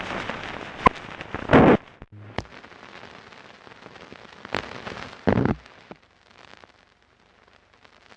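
Optical soundtrack of a 1973 16 mm film running out after its end music, read on a Raduga projector's sound pickup: a steady hiss and crackle, broken by a few sharp clicks and two short, louder bursts of noise. The hiss fades away near the end and then cuts off.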